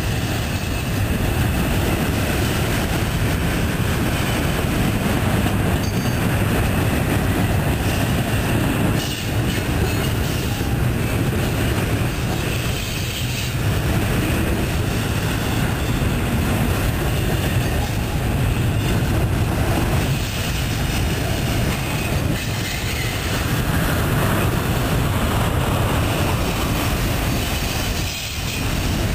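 Double-stack intermodal container train of well cars rolling steadily past: the continuous rumble and clatter of steel wheels on the rails.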